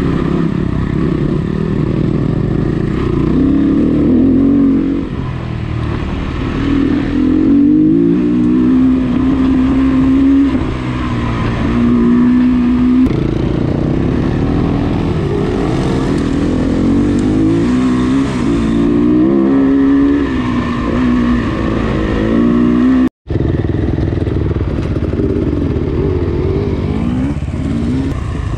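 Dirt bike engine heard from on the bike, its note rising in pitch and dropping back again and again as it accelerates and shifts along a rough trail. The sound cuts out for an instant a little past twenty seconds.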